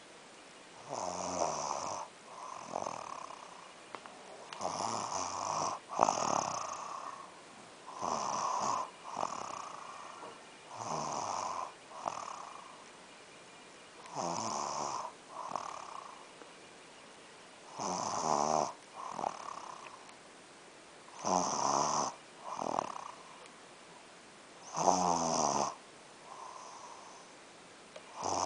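Rhythmic snoring of a sleeper: about eight breaths, one every three to four seconds, each a longer snore followed by a shorter, softer one.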